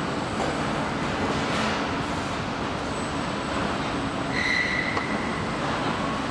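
Car assembly-line machinery running: a steady industrial rumble and hiss, with a brief high squeal about four and a half seconds in.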